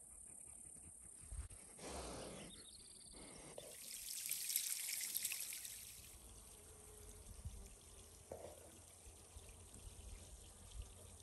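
Faint outdoor ambience: a soft rushing hiss that swells for a couple of seconds around the middle and fades, with a few light knocks.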